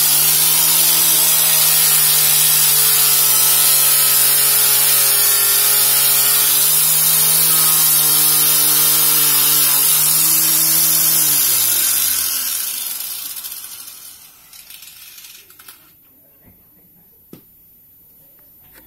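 Angle grinder with a cloth buffing pad running steadily while polishing a chrome motorcycle exhaust, then switched off about eleven seconds in and winding down with a falling whine. A few faint clicks follow.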